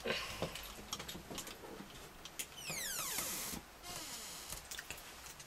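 Small plastic kit parts clicking and rattling in the hands as they are fitted together, with a brief falling swish about two and a half seconds in.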